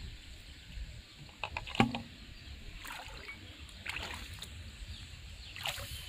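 A few short knocks and light splashes as a plastic-bottle float is handled and set into pond water. The sharpest knock comes about two seconds in.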